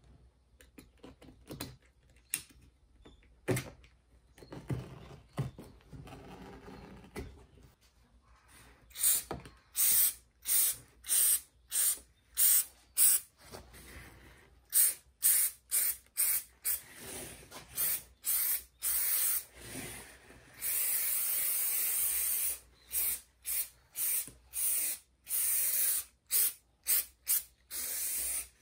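Aerosol can of spray adhesive spraying in many short hissing bursts, with one longer spray of about two seconds past the middle. The first third is much quieter.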